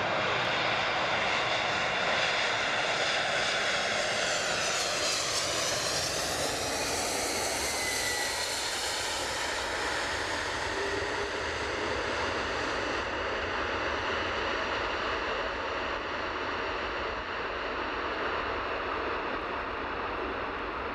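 The four jet engines of a Boeing 747-400 Freighter running loud as it passes low and close and lands. The sound sweeps downward as the jet goes by, then goes on steadily, slowly fading, as it rolls out along the runway.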